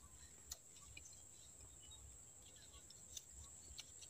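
Near silence: faint outdoor background with a steady high-pitched whine and a few faint clicks.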